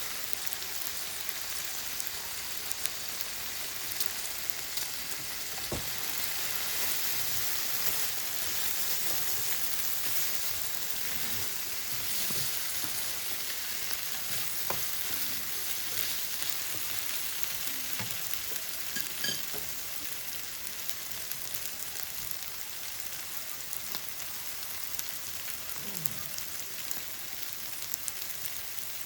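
Yakisoba noodles frying with a steady sizzle, with scattered short clicks and taps from the noodles being stirred and turned.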